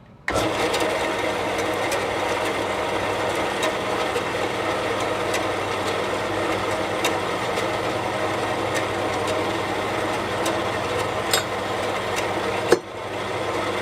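Metal-cutting band saw switched on and running steadily, with a light tick about every second and a half to two seconds and a short dip with a click near the end. The blade stays on the wheels on this run, after an adjustment of the wheels and guides to stop it flying off.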